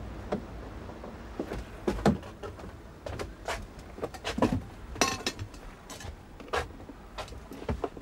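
Footsteps and knocks of people climbing down wooden steps into a narrowboat cabin and moving about on its wooden floor: a run of irregular thuds and clicks, the loudest about two seconds and five seconds in.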